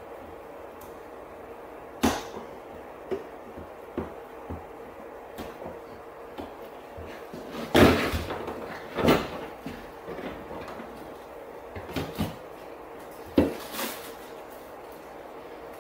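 Irregular clicks and knocks of plastic brake-light parts and small tools being handled and set down on a pickup's cab roof, a handful of sharper knocks with the loudest pair about halfway through, over a faint steady hum.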